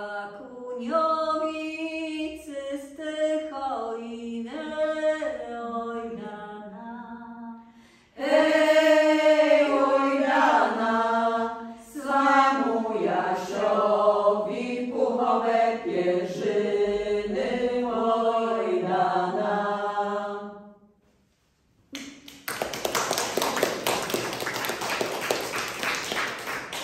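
Women's folk vocal ensemble singing an old Polish folk song unaccompanied, in two long phrases, ending about twenty seconds in. After a brief pause the audience applauds.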